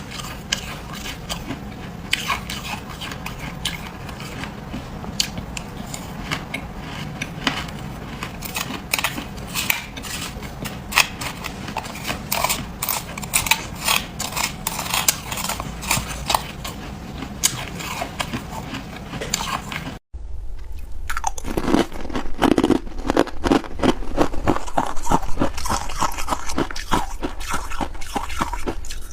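Freezer frost being bitten and chewed close to the microphone: a steady run of crisp, crackling crunches. About twenty seconds in there is a momentary break, after which the crunching is louder and fuller.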